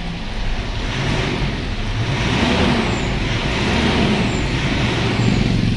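Mitsubishi Strada pickup engine running, its sound growing a little louder about half a second in and then holding steady. It is running again now that the alarm system's faulty starter cut-off relay has been replaced.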